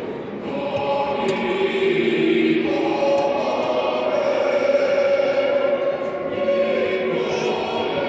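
A large stadium crowd singing a national anthem together with the anthem playing over the public-address system, in long held notes.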